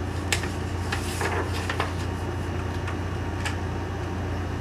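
A paper picture book being handled and its page turned: a few light clicks and a short paper rustle about a second in, over a steady low hum.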